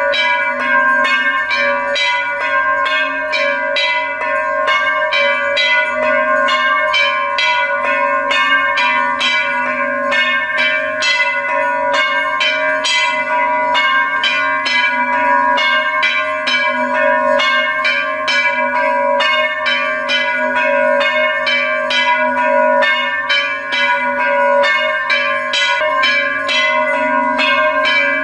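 Hindu temple bells rung continuously and rapidly, about three strikes a second, the strikes running together into one steady ring.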